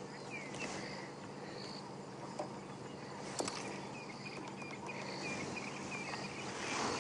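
Insects chirping in short repeated calls over a steady low hum.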